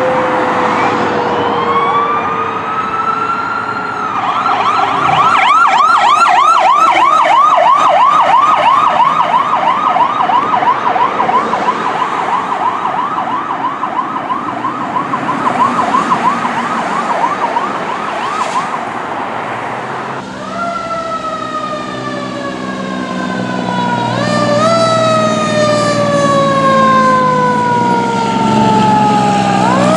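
Fire truck sirens. First an electronic siren rises in a wail, then switches to a fast yelp, warbling up and down about three to four times a second. About twenty seconds in a different siren takes over; its pitch jumps up quickly and sinks slowly, over and over, with a low steady hum beneath.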